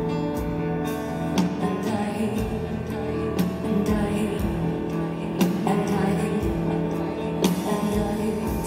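Live music: a Bösendorfer grand piano playing sustained chords over a held low bass line, with a beat struck about once a second.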